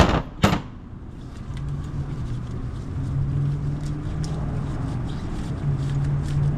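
Two sharp metal strikes about half a second apart: a mallet hitting a hand impact driver to break free the brake rotor's retaining screw. Then a steady low hum, like a vehicle engine running nearby, fades in and out.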